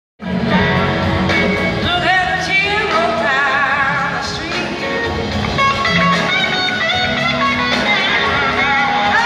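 Live blues-rock band playing a slow blues through a concert PA, recorded from the audience: electric guitar lines with wavering pitch over bass and drums, with singing.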